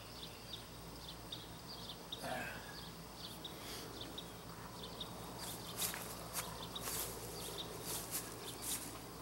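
Pasture ambience: small high chirps repeating every fraction of a second over a low steady hum, with a string of sharp, crisp clicks in the second half.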